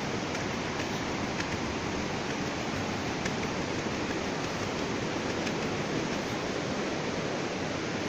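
Steady rush of a fast mountain stream running through a rocky canyon, with a few faint taps.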